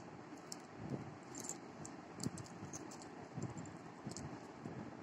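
Faint, irregular clicks and clinks of gold-plated earrings with pearl hangings being handled and moved about on a velvet cloth, with a few soft handling thuds.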